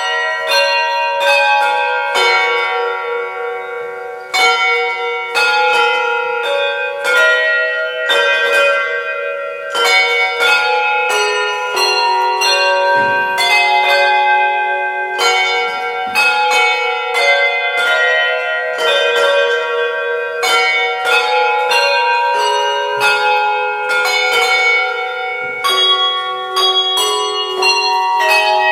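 Handbell choir playing a carol tune: hand-rung bells struck one after another, a new note every half second or so, each ringing on under the next.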